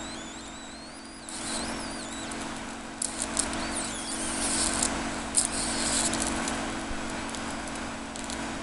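High-voltage arc from a flyback transformer driven by a ZVS driver: a steady hum under a hissing, crackling discharge with a wavering high whine, the crackle growing denser from about three seconds in.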